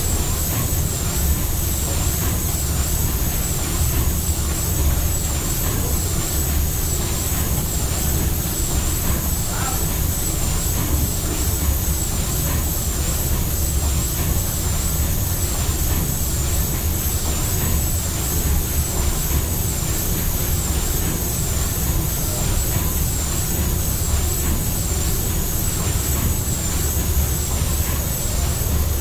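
The 1912 paddle steamer Schönbrunn's steam engine running at half speed, a loud, steady mechanical beat from its turning cranks and connecting rods repeating evenly.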